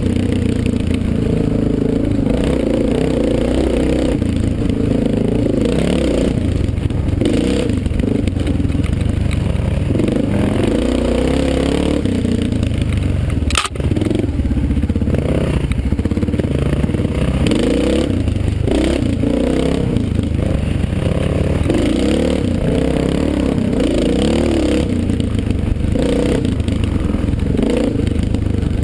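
Dirt bike engine running hard along a trail, its revs rising and falling continuously as the rider works the throttle.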